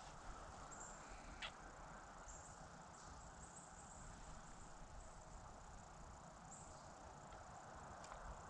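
Near silence in woodland: a faint, high, steady cricket trill, with one small click about a second and a half in.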